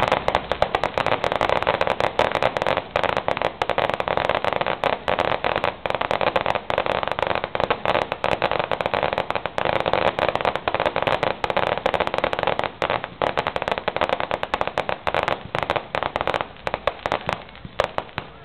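Fireworks finale barrage: a dense run of rapid, overlapping bangs and crackling bursts, thinning out near the end.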